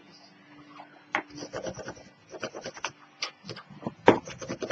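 White bone folder rubbing and scraping along the folds of a kraft cardstock piece to burnish them down, a run of short strokes starting about a second in.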